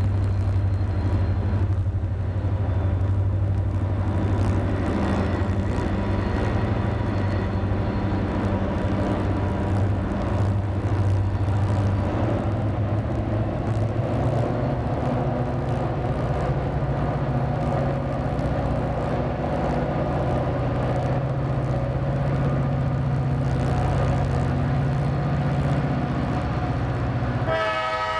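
Diesel locomotive of an approaching CSX ballast train, a steady low engine rumble that rises a little in pitch about halfway through. Near the end the locomotive's air horn starts to blow.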